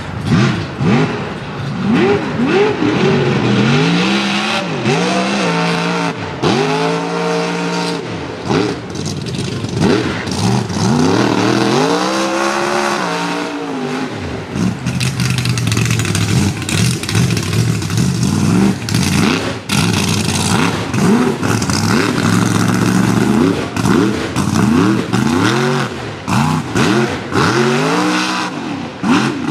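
Supercharged mud truck engine revving hard, its pitch climbing and dropping again and again as the throttle is worked.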